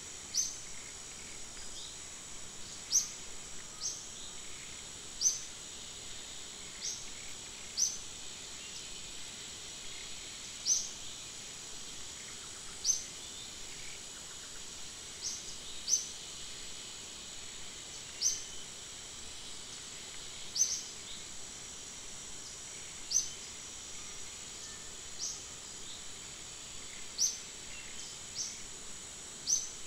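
Forest ambience: a steady high-pitched insect drone, with short sharp high chirps repeating irregularly every one to two seconds.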